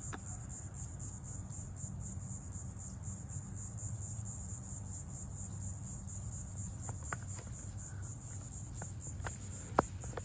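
Steady high-pitched chorus of insects with a fast pulsing trill, over a low steady hum. A few faint clicks come in the second half, with one sharp click shortly before the end.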